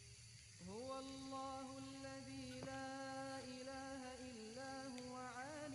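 Quran recitation: a single voice chanting in long, drawn-out melodic notes that step up and down. It starts about half a second in and has a short rising turn near the end.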